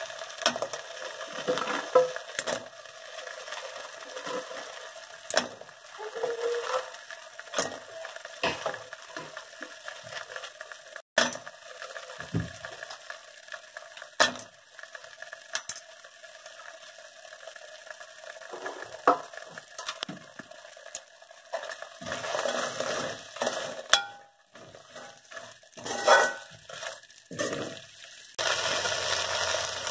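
Slotted steel ladle stirring, scraping and clinking against a steel kadai as fried soya chunks are turned through thick sauce, over a faint sizzle. The knocks come irregularly and grow busier near the end.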